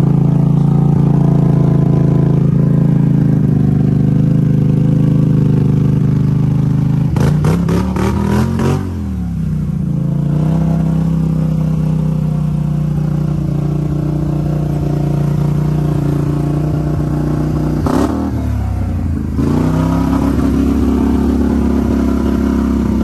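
Polaris Sportsman 850 ATV engine running hard under steady throttle as it pulls through mud and onto grass. Its pitch drops and climbs back up twice, about seven seconds in and again near eighteen seconds, with a brief clatter during the first dip.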